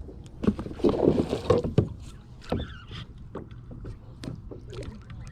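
Knocks and water noise around a kayak: irregular thuds and clatter against the hull with some splashing, loudest in a burst of knocks during the first couple of seconds, then scattered clicks.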